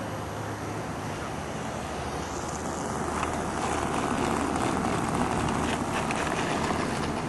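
Radio-controlled model airplane's engine running at low throttle as the plane comes in to land and rolls out. It grows louder about three seconds in as the plane nears.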